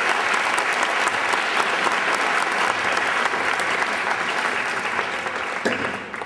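An audience of students applauding, many hands clapping together, fading away near the end.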